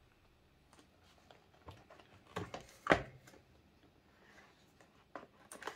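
Packaging of a wireless charger being handled and opened: a few light taps and rustles with scattered clicks, the sharpest about three seconds in.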